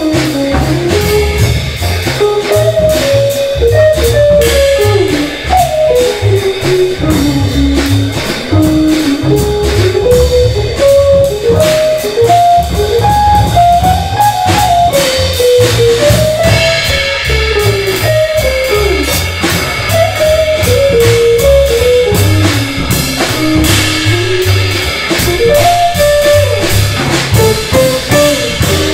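Live jazz: an archtop electric guitar plays a single-note solo line over upright bass and a drum kit with cymbals.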